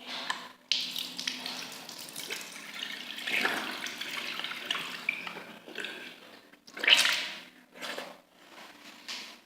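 Water running and splashing in a bathroom, uneven and breaking off abruptly several times, with a louder surge about seven seconds in.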